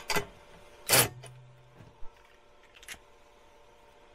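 Cordless drill working a bolt on a steel lift-mounting bracket in short bursts, with metal clatter, the loudest about a second in. A brief low hum follows, then two faint clicks.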